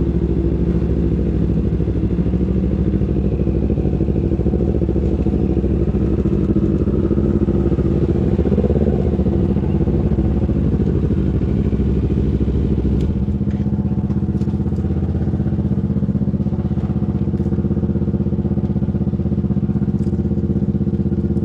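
250 cc parallel-twin sport motorcycle engine running on the road; about thirteen seconds in its note settles into a steadier hum, with a few light clicks after that.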